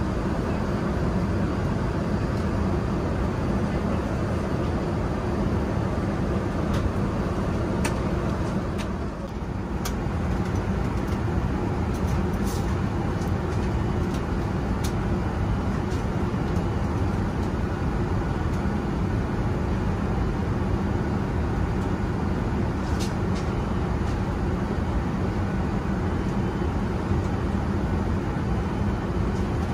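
Steady cabin noise of an Airbus A380 in cruise: an even rush of airflow and engine noise, strongest in the low range, with a few faint light clicks. The noise dips briefly about nine seconds in.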